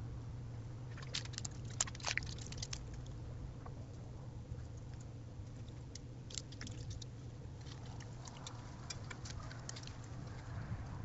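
Clusters of light clicks and scratching from a raccoon clawing at and handling a hanging bird feeder, over a steady low hum.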